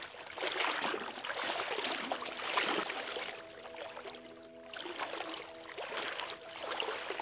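Murky floodwater sloshing and splashing around a person's legs as he wades deep through it, in uneven surges with each step.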